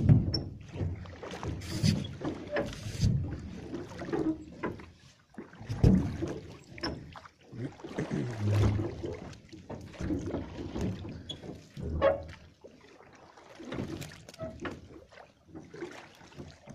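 Water splashing and sloshing against a small riveted metal boat, with irregular knocks and a few heavier thumps on the hull as the boat is worked along. No motor is running.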